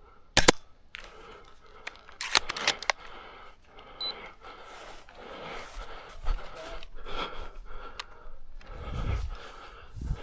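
Sharp clicks and scraping handling noise: one loud snap about half a second in, then a quick cluster of clicks around two and a half seconds.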